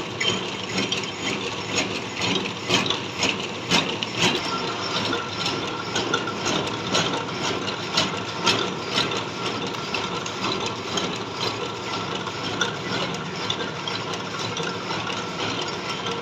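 Metal lathe running while a cutting tool turns down a welded workpiece to make it round, with irregular clicks and knocks from the cut. A steady whine joins about four seconds in.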